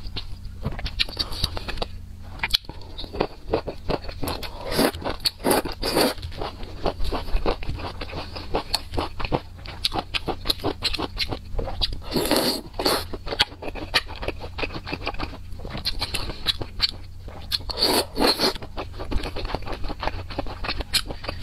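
Close-miked eating sounds of a spicy noodle stew: wet chewing and mouth sounds, with chopsticks clicking and scraping against a metal pot. The sounds come as many short clicks and bursts, with a few longer, louder bursts.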